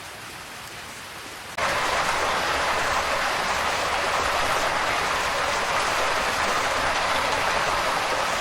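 Steady hiss of heavy rain, jumping suddenly to a louder level about one and a half seconds in.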